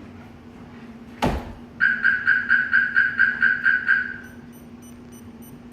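A single sharp knock on the Audi RS3's body sets off the Viper 5706V alarm's shock sensor. The siren answers with a short burst of about eleven loud, rapid beeps, roughly five a second, then fainter high-pitched beeping continues near the end.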